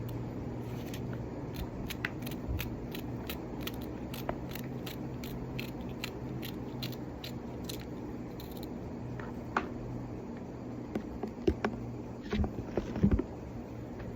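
Kitchen work sounds: light, evenly spaced clicks about two a second for most of the stretch, then a few louder knocks and clatters of utensils near the end, over a steady low hum.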